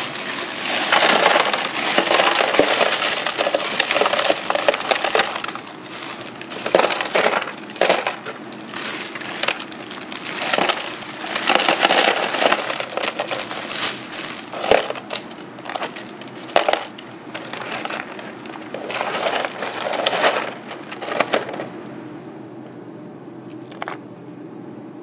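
Crushed ice poured from a plastic bag into a plastic tub, crunching and clinking in repeated surges with sharp clicks, then dying away near the end.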